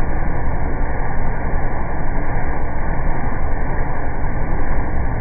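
Tractor-driven silage blower running steadily as its hopper auger feeds in chopped corn silage, heard as a continuous, dull machine noise with the treble cut off.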